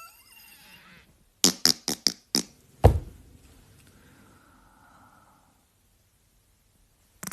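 Dubbed-in fart sound effects: a rising squeaky tone fades out in the first second, then come five quick sharp pops and a single heavy low thud about three seconds in, which dies away into a faint tail. Another burst of sharp pops starts at the very end.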